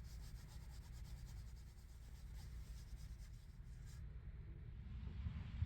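Pencil scratching and rubbing on sketch paper, faint. A low rumble underneath grows louder in the last couple of seconds.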